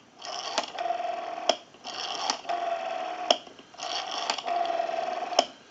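Western Electric Princess telephone's rotary dial being wound and let spin back, three times in a row: each return is a steady whir with a click at either end, and short pauses between turns. The dial is returning smoothly.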